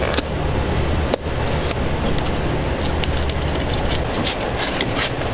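A steady low mechanical hum, with scraping and scattered sharp clicks as a rigid foam insulation board is handled and fitted by hand; one sharper click about a second in.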